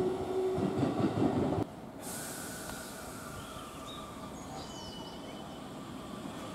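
JR 313 series electric train approaching, its wheels rumbling over the rails with a steady low whine. About 1.7 s in the sound cuts abruptly to a 313 series standing at the platform, humming steadily, with a few faint high chirps.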